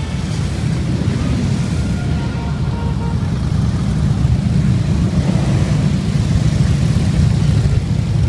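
A procession of motorcycles, mostly Harley-Davidson V-twin touring bikes, riding past in a steady column, making a continuous deep engine rumble. It grows a little louder about halfway through as more bikes close in.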